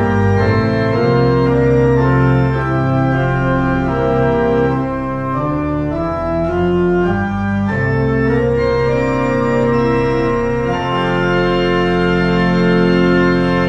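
Church pipe organ playing a closing postlude: sustained chords that change every second or so, settling into one long held chord about eleven seconds in.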